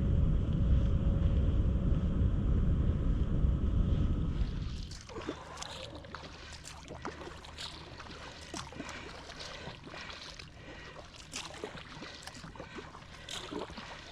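A steady low rumble for the first five seconds or so, then it cuts down sharply to quiet water sounds: kayak paddle strokes splashing and dripping in irregular small splashes.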